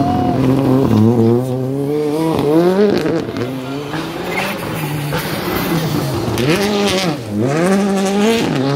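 Rally cars at full speed on a gravel stage. The engines rev high, with the pitch climbing through each gear and dropping sharply at gear changes and lifts, along with gravel noise from the tyres.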